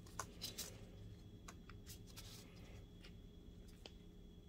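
Near silence with a few faint clicks and light handling noises from gloved hands working the lens adjuster out of a DLP projector's lens assembly. The clicks are clustered in the first second, with a few more scattered later.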